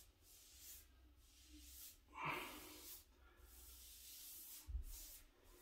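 Near silence, with faint swishes of a paintbrush laying urethane on a wooden door jamb and one short breathy sound about two seconds in.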